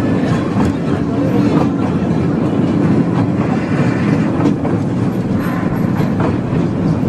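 Toy train running on its track, heard from aboard: a steady rumble with occasional clicks from the wheels over the rails.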